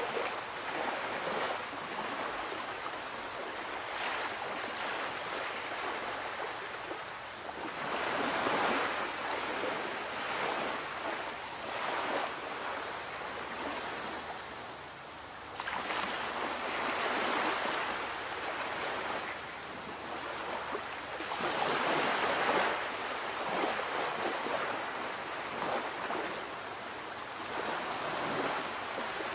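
Waves washing and breaking, a steady rush of water that swells into a louder surge every six to eight seconds.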